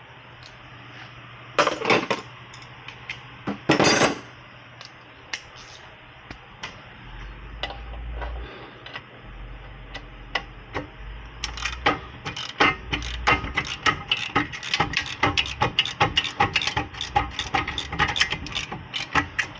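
Hand ratchet wrench clicking in quick runs as a loosened rear wheel hub bolt is turned out. Two louder, half-second bursts of metal noise come about two and four seconds in.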